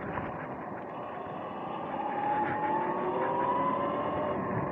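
Sur-Ron X electric dirt bike's motor whining under way, its pitch rising from about two seconds in as the bike speeds up. Underneath runs a steady rushing noise from tyres and air.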